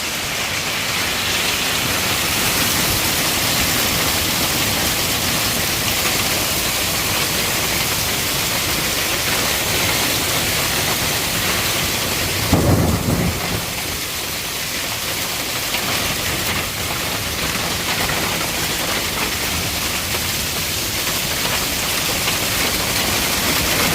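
Heavy storm rain pouring down in a steady, loud hiss, with a brief low rumble about halfway through.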